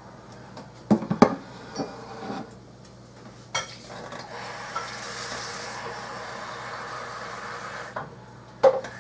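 Metal food cans set down on a countertop: a few sharp clunks and knocks, then a steady hiss for about four seconds, and one more knock near the end.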